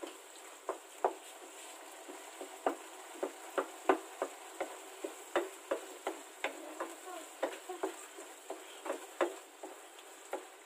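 Wooden spatula stirring a thick tomato sauce in a nonstick frying pan, knocking and scraping against the pan in irregular strokes, over a steady sizzle of the simmering sauce.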